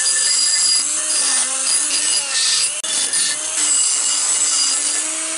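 Handheld straight die grinder running and grinding, cleaning up a small tungsten slug. Its whine wavers in pitch as the bit bites and eases off, over a steady high hiss.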